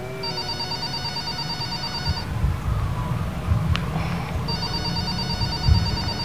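Mobile phone ringing with an electronic trilling ringtone, two rings of about two seconds each with a pause between.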